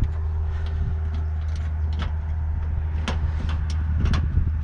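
A steady low rumble with scattered light clicks and metallic taps from hand tools, as a hood strut mounting bracket is set in place and worked on.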